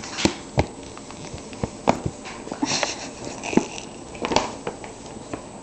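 Paper shopping bag rustling and crackling as a Siamese kitten moves about inside it, with a string of sharp taps and scrapes and a short crackle about three seconds in.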